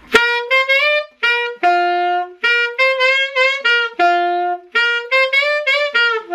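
Selmer Mark VI saxophone playing an unaccompanied B-flat blues line: phrases of quick notes broken by short breaths, with a couple of longer held notes.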